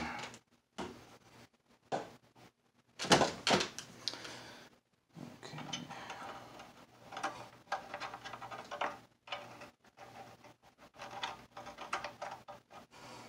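Irregular clicks, knocks and scraping as a chip puller and fingers work inside a Digitech 2120's metal chassis, prying the old firmware chip up out of its socket. The loudest knock comes about three seconds in, followed by stretches of scraping and rattling.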